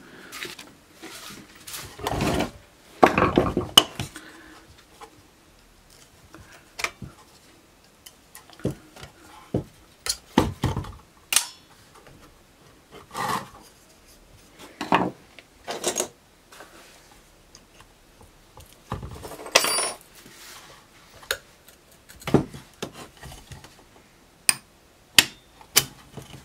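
Irregular clinks, knocks and scrapes as a screwdriver and the rusty metal parts of a Wolfcraft drill press stand are handled and worked apart on a wooden workbench.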